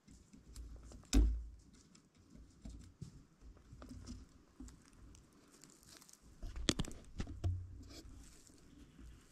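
Rustling and crinkling of handling and movement at a bow-mounted camera, with low rumble. The loudest sound is a sharp knock about a second in, and a cluster of clicks and knocks comes near seven seconds.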